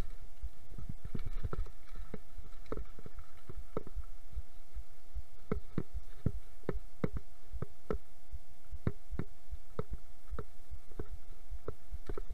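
Mountain bike rattling over a rough, stony dry trail on a descent: irregular sharp knocks from the bike's frame, chain and wheels hitting bumps, over a low rumble of tyre and wind noise. A faint steady high tone sits underneath.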